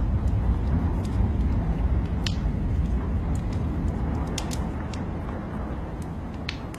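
Wood fire crackling with scattered sharp pops over a deep, rumbling rain ambience that slowly fades.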